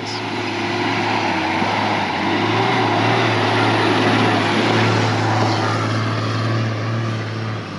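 Four-wheel drive's engine running steadily as it drives, a constant drone over road and tyre noise, easing off slightly near the end.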